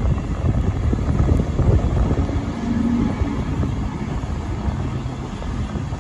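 Steam-hauled train running away from a station, heard from an open carriage window: a loud, steady rumble of the train underway, with wind on the microphone.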